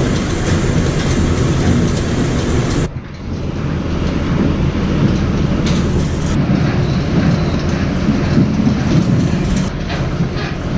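Seed-loading machinery running steadily while a truck is loaded with seed, with a brief dip about three seconds in.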